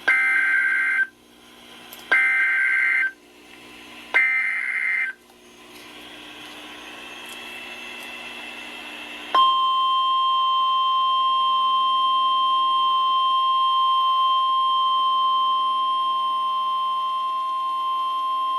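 NOAA Weather Radio Emergency Alert System signal: three screechy digital header bursts of about a second each, a second apart, then after a few seconds of faint static the steady 1050 Hz warning alarm tone starts about nine seconds in and holds. It announces a new warning broadcast.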